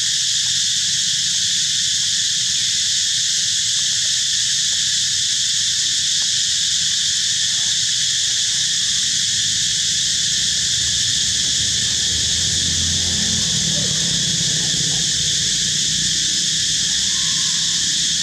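A steady, high-pitched insect chorus drones without a break.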